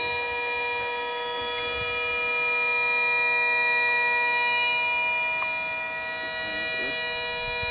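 Motor of a trailer-mounted launch tower raising a large model rocket toward vertical: a steady, loud whine of several tones that holds its pitch throughout.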